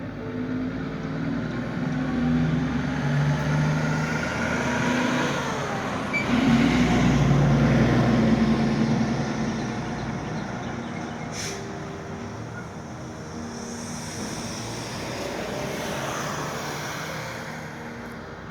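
A motor vehicle running past, its engine hum growing to its loudest about seven or eight seconds in and then slowly fading away.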